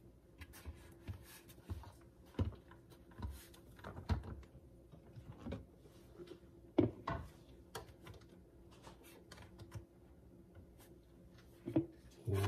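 Light plastic clicks and knocks as the clear plastic bean hopper of a Bodum Bistro electric burr grinder is handled and fitted onto the grinder body, irregular, with a louder knock about seven seconds in and another near the end.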